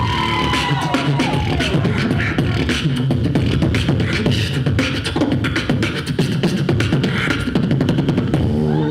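Solo beatboxer freestyling into a handheld microphone: a fast, dense rhythm of vocal drum sounds over a heavy bass line, with a pitched vocal glide falling away near the start.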